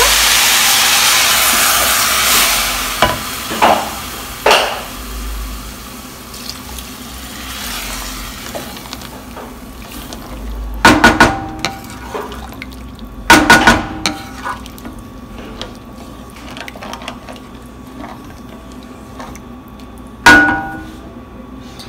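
Water poured from a glass into a nonstick pan of sautéed rice, running loudly for about two and a half seconds and then fading. After that a wooden spoon stirs the rice and water, with several sharp knocks against the pan.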